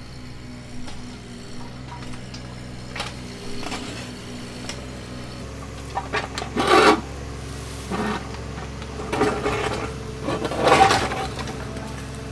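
Small hydraulic excavator's engine running steadily while its bucket digs a drainage ditch, scraping and rattling through rocky soil in two loud spells in the second half.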